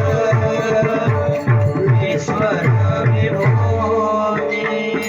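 Instrumental interlude of a Marathi devotional song: a tabla-like hand drum plays a steady rhythm of deep strokes that slide down in pitch, over held instrumental tones. The drum strokes drop out about four seconds in while the held tones carry on.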